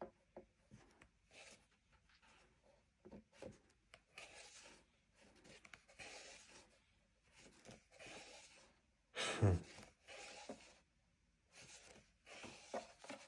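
Pages of a large hardback book being turned and flicked through, a soft papery rustle in short bursts. About nine and a half seconds in there is one brief louder sound.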